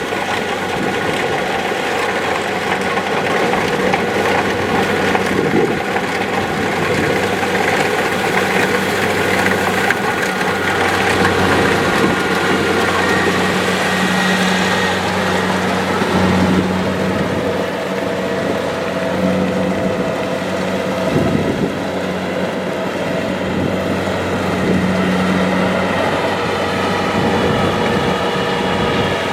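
Kubota DC-70 Plus rice combine harvester running steadily, its diesel engine droning under the noise of the cutting and threshing machinery.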